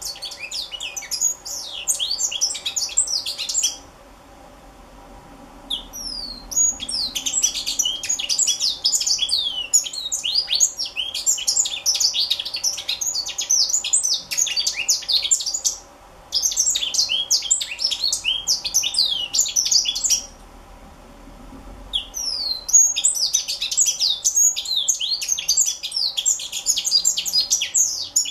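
Young African citril singing: long bouts of rapid, high twittering notes, broken by a few short pauses of a couple of seconds.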